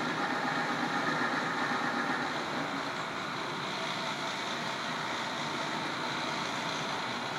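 Power washer running steadily: a continuous engine drone over a hiss, a little quieter from about two and a half seconds in.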